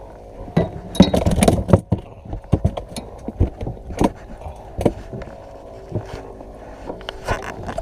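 Knocking and clattering of hands and gear in a small wooden fishing boat as a just-landed snapper is stowed in a plastic box, with a quick run of knocks about a second in. A faint steady hum runs underneath.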